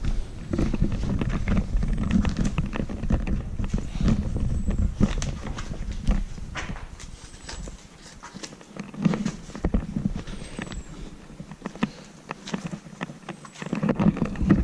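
Footsteps on a hard floor: irregular knocks and scuffs, with a low rumble under them that stops about eight seconds in.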